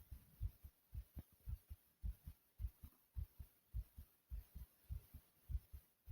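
A fast human heartbeat, racing after exertion (40 jumping jacks): an even run of low, faint thuds at about three a second.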